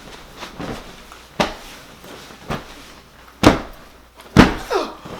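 Several separate knocks or thumps, the two loudest about three and a half and four and a half seconds in.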